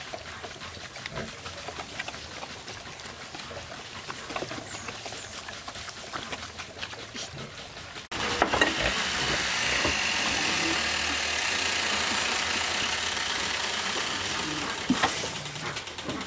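A pack of dogs and puppies eating food from a trough, a wet lapping and chewing with small clicks from the ladle. About halfway through it jumps to a louder, denser hiss of eating.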